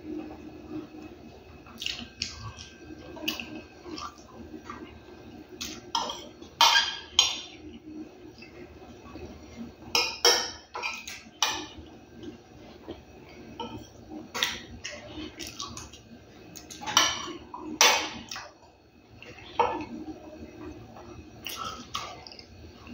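A metal spoon clinking and scraping against a glass plate as food is scooped up, with chewing between. The clinks are irregular and sharp, and a few of them are much louder.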